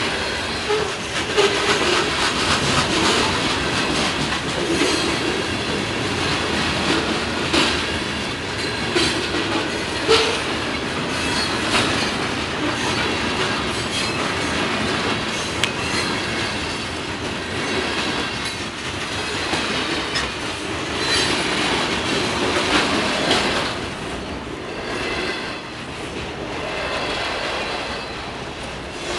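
Freight cars of a passing train rolling by: a steady rumble of wheels on rail, broken by repeated clicks and knocks as the wheels cross rail joints. A high wheel squeal comes and goes.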